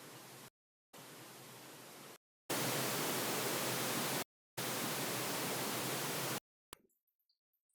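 THX Optimizer pink-noise test signal: four steady bursts of hiss, each about one and a half seconds long with short gaps between them. The first two are quieter and the last two louder, as the noise steps from speaker to speaker for level balancing. It ends with a short click near the end.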